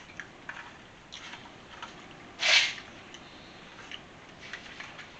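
Close-miked eating: small soft mouth clicks and the light scrape and tap of a plastic fork in a foil tray, with one short, loud, breathy mouth sound about two and a half seconds in.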